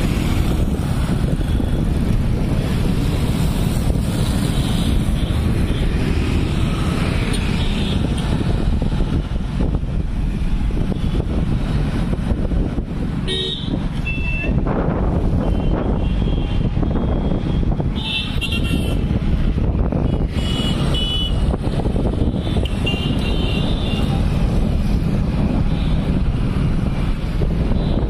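Steady rumble of city road traffic heard from a moving vehicle, with several short vehicle horns tooting through the second half.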